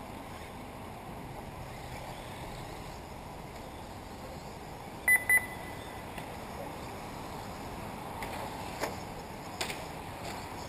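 Two short, sharp electronic beeps in quick succession about five seconds in, over a steady background hiss, with a few faint knocks later on.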